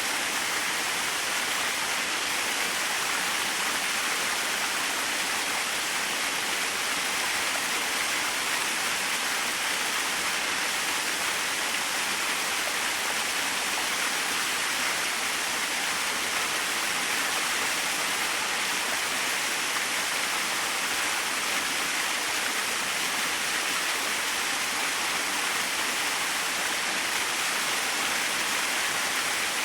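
Small waterfall splashing steadily, a constant hiss of falling water with no change in level.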